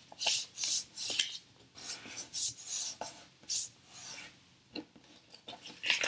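Fingers rubbing along a fold in a sheet of printer paper to crease it: about eight short swishing strokes in the first four seconds, then a few lighter rustles as the paper is handled.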